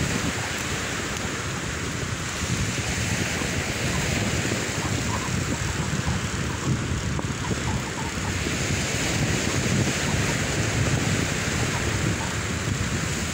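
Wind buffeting the microphone in uneven gusts, over the steady hiss of surf breaking on the beach.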